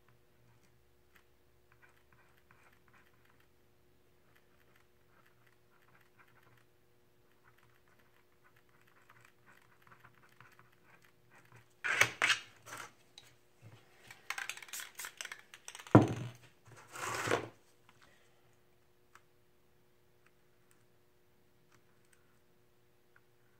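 Light scratching and clicking of a small hand tool scraping into wet spray paint on a panel. Partway through comes a few seconds of loud clattering and handling noise with one hard knock.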